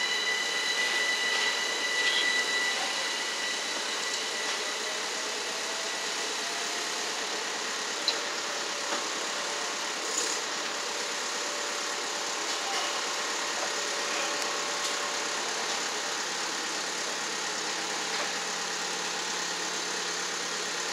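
London Overground Class 378 electric train pulling away, a steady whine at several pitches fading out over the first three seconds. After that, a steady noise of trains on the line with faint low whines as further units approach, and a single sharp click about eight seconds in.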